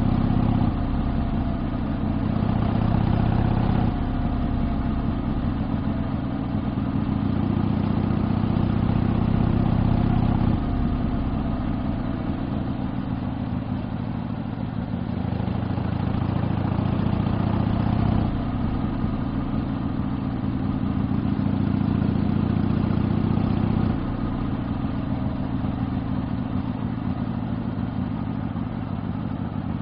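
Exhaust of a 1972 Harley-Davidson Sportster XLCH's 1000 cc V-twin, heard while riding. The engine note builds and then steps down in level and pitch several times, about five in all.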